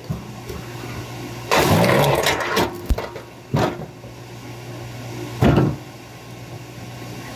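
Electric kinetic log splitter's motor and flywheel humming steadily, with three loud bursts as the ram drives through and red oak splits: a longer one about a second and a half in, then two short ones. Each burst takes a thin slab off a seasoned oak round.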